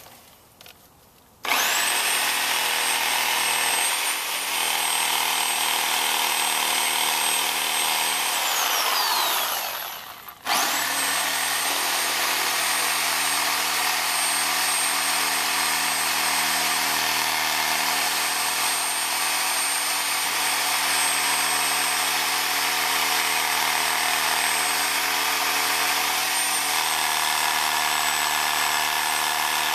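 Corded Bosch reciprocating saw with a coarse pruning blade cutting into arborvitae at the base of the bush, running steadily with a high motor whine. About eight and a half seconds in the trigger is let go and the motor winds down with a falling pitch, then it starts again about ten and a half seconds in and keeps cutting.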